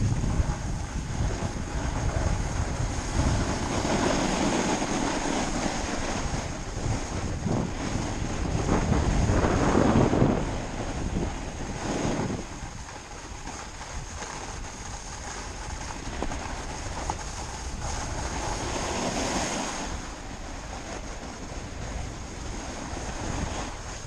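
Wind rushing and buffeting the microphone during a snowboard run, with the hiss of the board sliding on snow. It swells and eases several times, loudest about ten seconds in.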